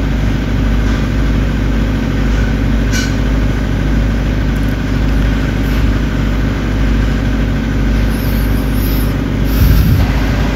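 Steady low drone of machinery running throughout, with a few faint clicks over it.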